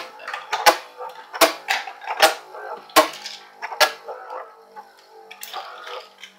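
Two metal Beyblade spinning tops battling in a plastic stadium: a steady whirring hum, with sharp metallic clacks about once every three-quarters of a second for the first four seconds, then only the whir.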